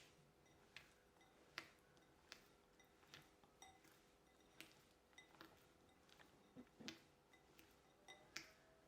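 Faint, irregular light taps and clinks of kitchen utensils against a bowl or baking pan, about a dozen over several seconds, a few with a short ring.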